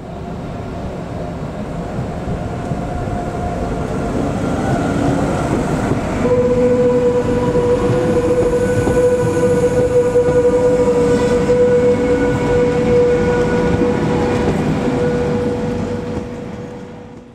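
White SBB electric passenger train running along the platform close by, its rumble of wheels and running gear growing louder, with a steady electric whine setting in about six seconds in. The sound fades out near the end.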